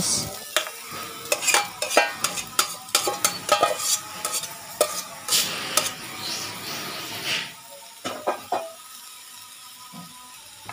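Cooked instant noodles scraped from a bowl with a spatula into a hot wok of stir-fried carrots and bell pepper: repeated clinks and scrapes of the utensil on bowl and wok, with sizzling as the noodles hit the oil. The last few seconds are quieter, with a few light knocks.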